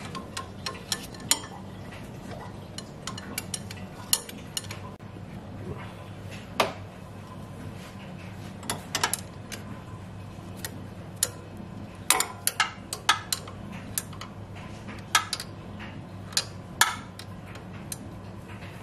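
Ratchet wrench clicking and clinking at uneven intervals, some in quick clusters, as a 12 mm bolt is loosened in the engine bay.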